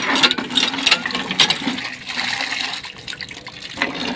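Tap water pouring into a mud-coated plastic bucket and splashing as the bucket is rinsed out.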